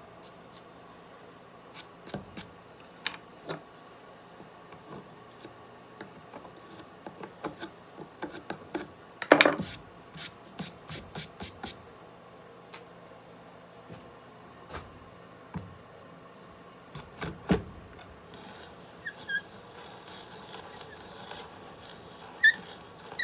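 Hand brace turning a Forstner bit into a wooden board: scattered clicks, creaks and knocks of wood and tool. There is a louder knock about nine seconds in, another around seventeen seconds, and a few small squeaks near the end.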